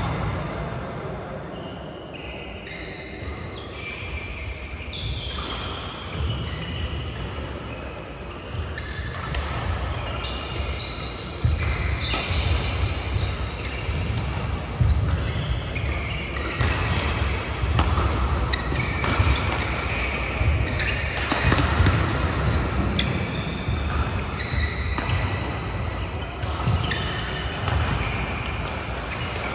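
Badminton play on several courts: rackets striking shuttlecocks, shoes squeaking on the court mats, and footfalls.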